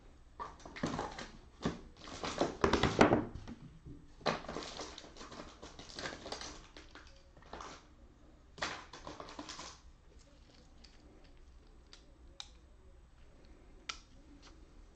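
Computer keyboard being typed on in quick bursts of clattering keystrokes, then a few single key clicks near the end.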